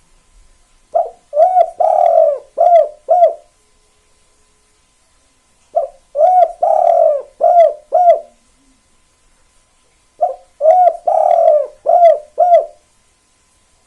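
Spotted dove (tekukur) cooing, a kuk-2 song type: three song phrases a few seconds apart, each a quick run of five or six coos.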